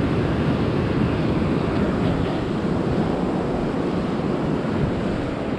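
Surf breaking on an open ocean beach, a steady rush of noise, with wind buffeting the microphone.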